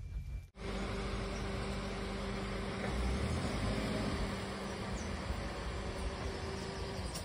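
Suzuki Carry camper truck's engine running at low speed as the truck moves off slowly, a steady hum over outdoor background noise, starting abruptly about half a second in.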